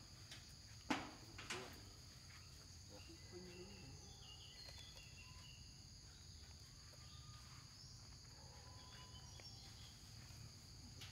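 Steady high-pitched insect chorus, faint, with two short sharp sounds about a second in, half a second apart.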